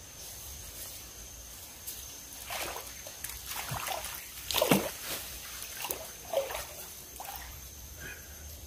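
Large freshwater eel thrashing on the line in shallow, muddy river water: a series of about six splashes and sloshes, the loudest about halfway through.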